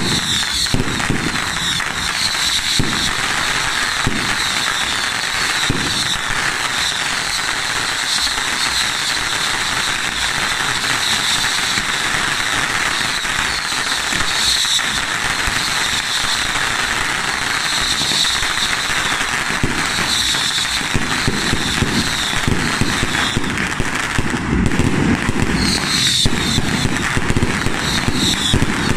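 A row of ground fountain fireworks spraying sparks: a continuous dense crackling hiss with rapid small pops, and a high whistling tone that comes and goes throughout.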